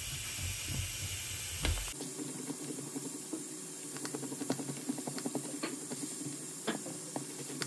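A bar of dark chocolate being grated by hand: a steady scraping hiss with scattered small clicks and knocks.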